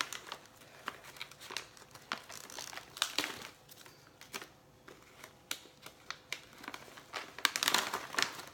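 Clear plastic pouch crinkling as it is handled and pulled open, irregular crackles throughout, loudest near the end.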